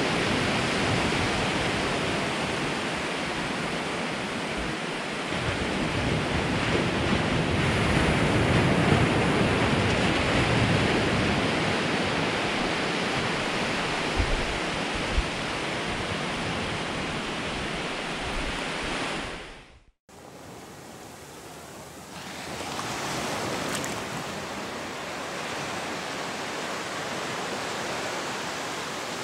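Ocean surf breaking and washing onto a sandy beach, a steady rush of noise mixed with wind. It cuts off suddenly about two-thirds of the way through and comes back quieter.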